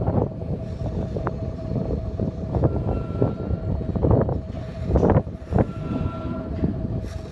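Wind buffeting the microphone in gusts, over a steady whine from equipment running at an oil well tank battery.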